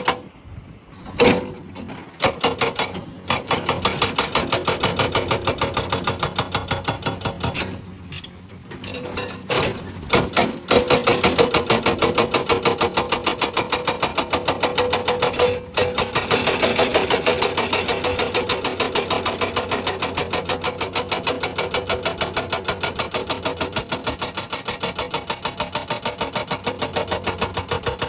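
Hydraulic breaker on a Komatsu PC200 excavator hammering rock: a rapid, even train of blows. It stops and restarts a couple of times near the start and about a third of the way in, then runs steadily.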